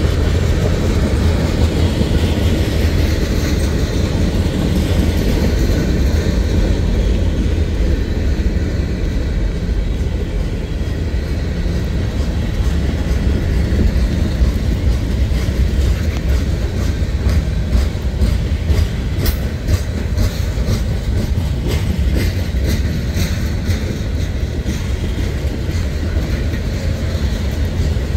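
Freight cars of a passing CSX manifest train, covered hoppers and tank cars, rolling by with a steady low rumble of steel wheels on rail. In the second half a run of sharp wheel clacks comes through.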